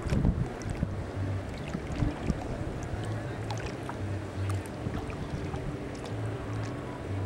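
Wind on the microphone and water lapping around a small boat, with a low hum underneath and scattered faint clicks. A few heavy wind buffets come right at the start.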